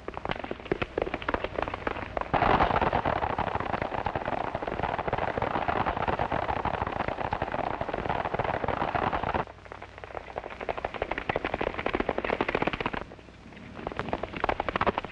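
Galloping horses' hoofbeats, a fast, dense clatter. It is loudest from about two seconds in until it cuts off sharply at about nine seconds, then goes on more softly.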